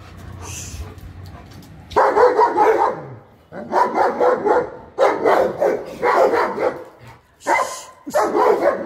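A large dog barking in six loud bouts, starting about two seconds in.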